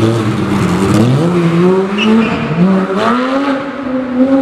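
Porsche 911 GT3's flat-six accelerating hard away, its pitch climbing in steps through quick upshifts.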